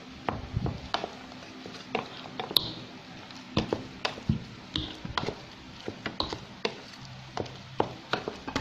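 A utensil stirring and scraping through cooked rice and beaten egg in a bowl, with irregular clicks and taps against the bowl as the two are mixed together.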